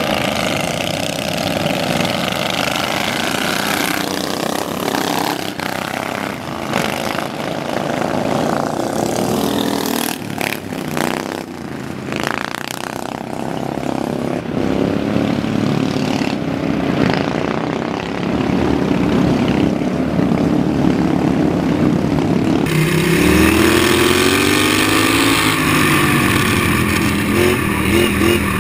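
Small engines of racing ride-on lawnmowers running as a pack goes round a dirt track. Near the end a single racing mower's engine is heard up close, revving up and down, its pitch rising and falling as it works through the corners.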